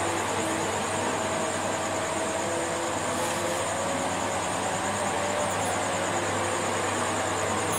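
Steady rushing background noise with a low hum under it, unchanging throughout.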